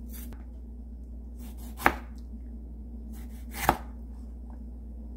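Kitchen knife slicing through a ripe tomato and knocking down onto a plastic cutting board, two sharp cuts a little under two seconds apart, over a faint steady hum.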